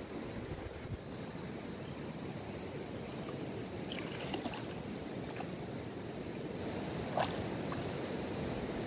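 Steady rush of a shallow river's flowing water, with a few light splashes around the middle and near the end as a man wades and lays out a fishing net.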